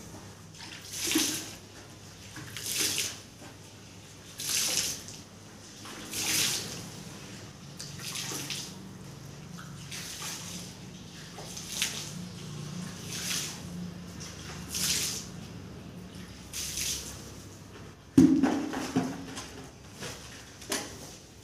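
Water flung by hand from a bucket onto a heap of dry sand-and-cement mix, a short splash about every second and a half, wetting it down to make tile mortar. Near the end, a single loud thump followed by a few smaller knocks.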